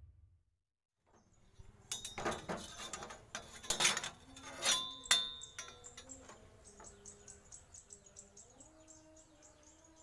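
Metal clinks and taps, several with a brief ring, as a steel ruler and square steel tube are set down and handled on a workbench. They are loudest in the first half and settle into lighter ticks, with faint chirping underneath.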